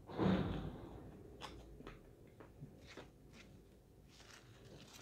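Close-miked eating: a loud bite of fast food just after the start, then soft, scattered chewing clicks and mouth noises as she chews with her lips closed.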